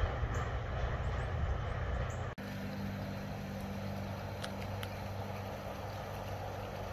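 A low, noisy rumble of wind on the microphone and a Budd RDC diesel railcar running away down the track. It cuts off sharply about two and a half seconds in and gives way to a steady low engine hum from a distant train approaching.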